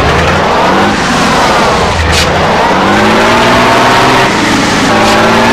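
Truck engine revving under load, its pitch dipping about two seconds in and then climbing and holding high.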